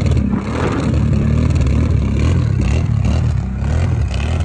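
Kawasaki Brute Force ATV engine revving hard under load, its pitch wavering, as the quad sits stuck with its wheels buried in deep snow.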